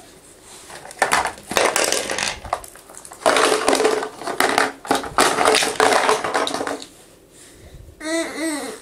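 Plastic toy pieces rattling and clattering as a baby grabs and moves a plastic shape sorter and its blocks on a foam mat, in two long noisy spells. Near the end comes a short vocal sound whose pitch rises and falls.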